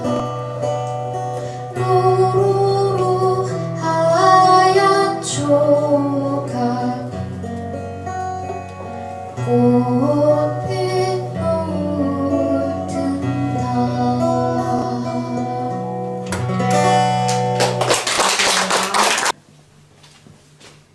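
Live folk song: singing over guitar accompaniment with steady held bass notes. It ends in a short, loud noisy burst about two seconds before the end, then cuts off suddenly to faint room sound.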